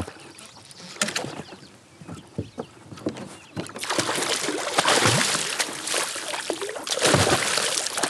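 Hooked smallmouth bass thrashing and splashing at the water's surface beside a kayak. It starts quiet, then breaks into loud, continuous splashing about halfway through.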